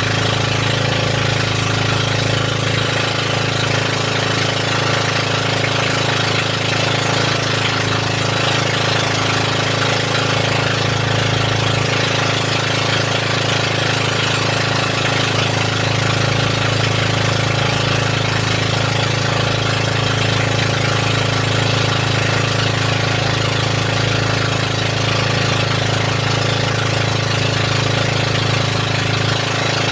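Boat engine running steadily at a constant, even speed, a loud unbroken drone.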